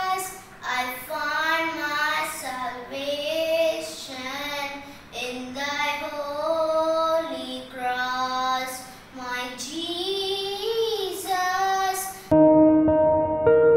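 A boy singing a hymn solo, unaccompanied. Just after twelve seconds in, the singing cuts off abruptly and a louder sustained keyboard chord of steady tones starts.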